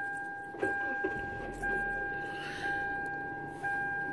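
Car's warning chime dinging about once a second, each ding fading before the next, four dings in all.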